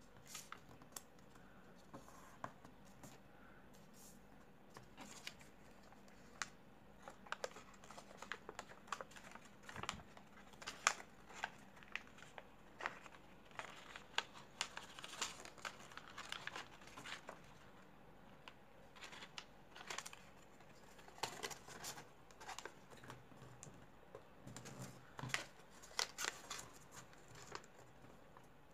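Origami paper being folded and creased by hand: irregular crinkles, rustles and small sharp crackles of the sheet, coming in busy spells.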